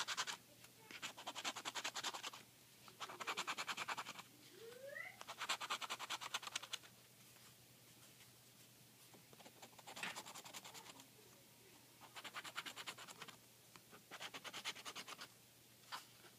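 Scratch-off lottery ticket being scratched: rapid scraping strokes over the coated play area in short bursts of a second or so, with pauses between the bursts.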